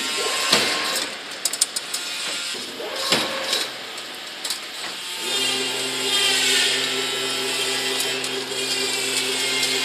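Double-wire fully automatic chain link fence machine running with a steady motor hum and metallic clicking and clatter as it weaves the wire. The hum drops out about half a second in, leaving scattered sharp clicks, and comes back about five seconds in.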